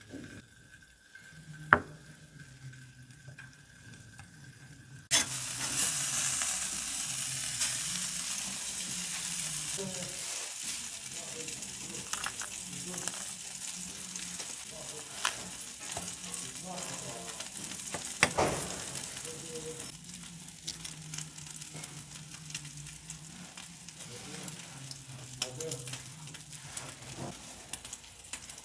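A sharp click about two seconds in, then a sudden sizzle of hot fat from the grilled burger patty, full of small pops, slowly dying down.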